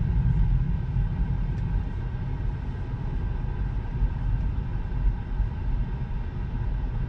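Steady low rumble of tyre and road noise heard inside a Tesla's cabin as the electric car rolls along at low speed, with no engine sound.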